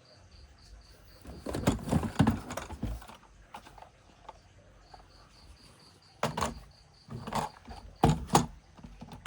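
Handling noise: irregular clatter and rustle in short bursts, from about one and a half seconds in and again in three bursts over the last few seconds, as toys and their packaging are handled.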